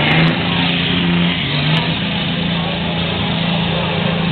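Pickup truck engine held at high revs as the truck drives through a mud pit, a loud, steady drone.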